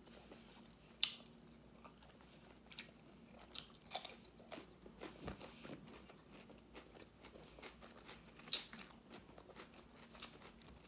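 Close-up chewing and wet mouth sounds from eating oven-grilled lobster tail, with a few sharp smacking clicks, the strongest about a second in and again about eight and a half seconds in.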